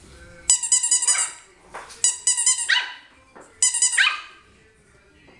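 Yorkshire terrier puppy yapping in three quick bursts of high-pitched barks, each burst ending in a sharp falling yip.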